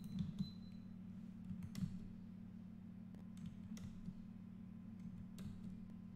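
A few faint, sharp computer mouse and keyboard clicks, about four, over a steady low hum.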